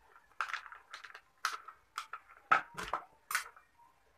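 Small plastic clip-on fan being handled: its plastic head, blades and arm click and knock in about eight short, separate taps, the sharpest about two and a half seconds in.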